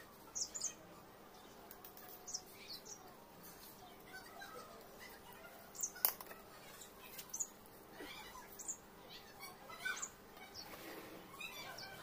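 Small birds chirping: short, high chirps come irregularly throughout, with one sharp click about six seconds in.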